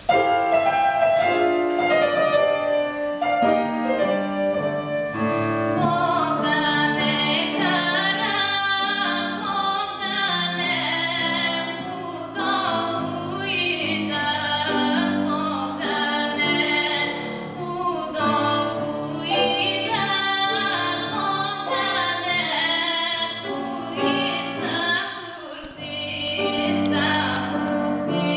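A woman singing an arranged Bulgarian song, accompanied on a grand piano.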